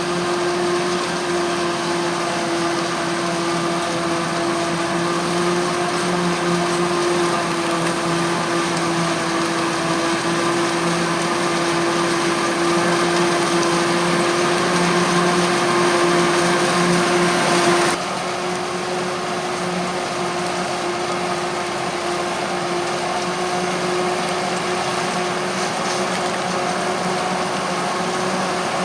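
Maize harvesting machinery running steadily, a continuous droning hum over machine noise. About two-thirds of the way through, the sound changes abruptly and drops slightly in level.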